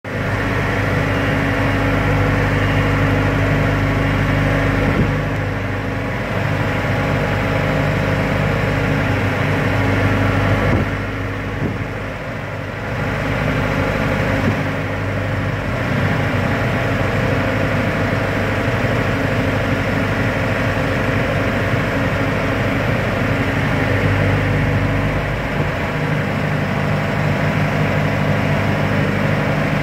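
An engine running, its speed shifting a little now and then.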